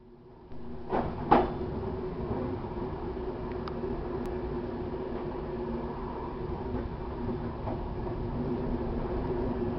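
Passenger train running on the rails, heard from on board: a steady rumble with a low hum, with two sharp knocks close together about a second in.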